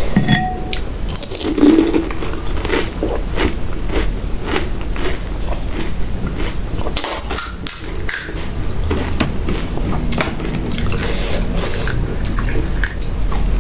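Close-miked eating: crisp pani puri shells crunched and chewed in many quick, irregular bites.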